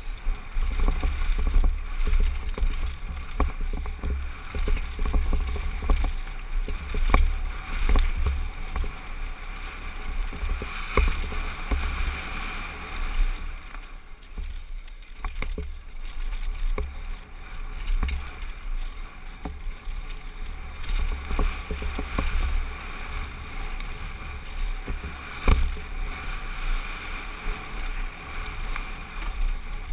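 Downhill mountain bike descending a rocky trail, heard through a helmet-mounted GoPro HD: steady wind rumble on the microphone, overlaid with the rattle and frequent sharp knocks of the bike over rocks and roots. It eases briefly about halfway through.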